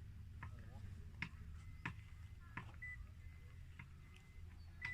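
Low steady hum of a vehicle on a rough mountain road, with sharp irregular clicks and knocks as it jolts over bumps, and a faint short high beep or two.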